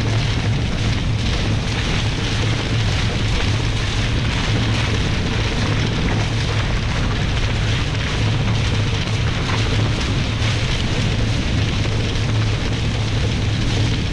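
Steady, loud rush of wind and water on a Nacra 20 catamaran sailing fast downwind under spinnaker, with wind beating on the microphone.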